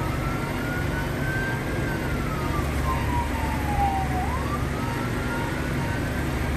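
Fire engine siren on a slow wail, heard from inside the cab: the pitch climbs for about two seconds, then slides slowly down, and starts climbing again near the end, about every four and a half seconds. Under it runs the steady rumble of the engine and the road.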